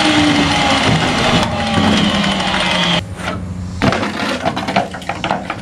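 Angle grinder with a cut-off wheel winding down in a slowly falling whine while rusted sheet metal is wrenched loose. About three seconds in this stops abruptly, giving way to clanks and rattles as a torn-out piece of rusted floor pan hits the concrete.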